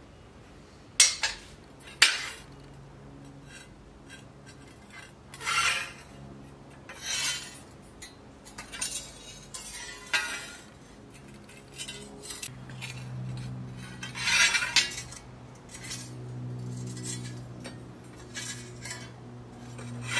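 Metal clinking and scraping in scattered single strokes, opening with two sharp clicks. A steady low hum grows stronger from about twelve seconds in.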